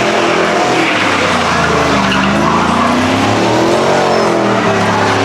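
Truck engine revving hard during a burnout, its pitch swelling up and down, over the hiss and squeal of spinning tyres.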